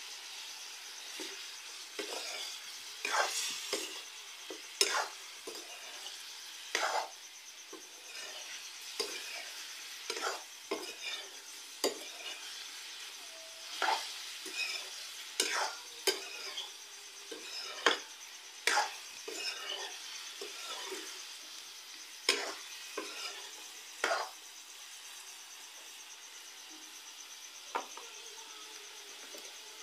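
Pork pieces sizzling in a metal kadhai, with a spatula repeatedly scraping and knocking against the pan as the meat is stirred. The stirring stops a few seconds before the end, leaving a steady sizzle and one last knock.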